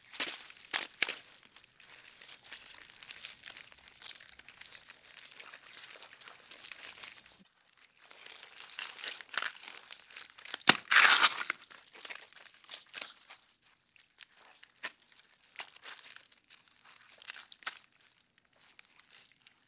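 Beetle movement sound effect: dry, scratchy crinkling and clicking rustles that come in irregular spurts. A louder dense burst of crackling comes about eleven seconds in, and the sound thins to sparse clicks near the end.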